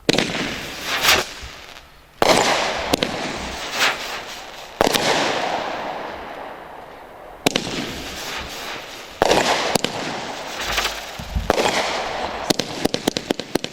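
A rig of fireworks going off: a new loud burst every two to three seconds, each fading into a hissing, crackling tail dotted with sharp pops.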